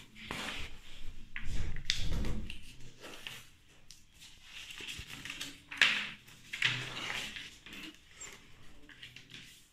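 A sheet of paper being handled on a wooden desk: rustling, sliding and being pressed flat and creased by hand, in irregular bursts. A dull low rumble comes around two seconds in, and a sharper rustle about six seconds in.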